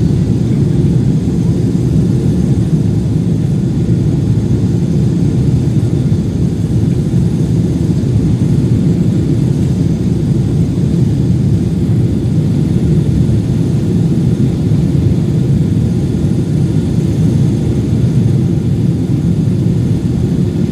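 Steady low cabin rumble of a Boeing 777-200 airliner with its engines running, engine noise and airflow blending into an even roar with no change in pitch.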